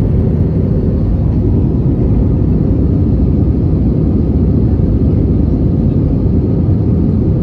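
Steady low rumble of a vehicle in motion, even and unbroken throughout.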